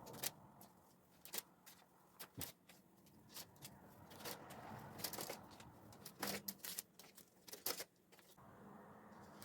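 Irregular light clicks and taps with brief soft rustling, as of small objects being handled and set down.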